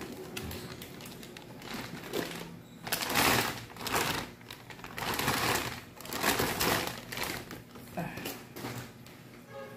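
Clear plastic bag crinkling and rustling in several bursts as a turbocharger is pulled out of it by hand.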